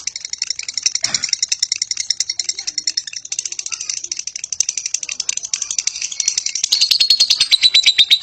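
Lovebird 'ngekek': a long, unbroken, high chattering trill of rapid repeated notes that grows louder about seven seconds in.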